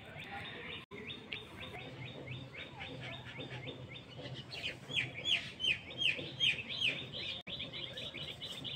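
Small birds chirping in a quick run of short, high, falling chirps, several a second, growing louder about halfway through.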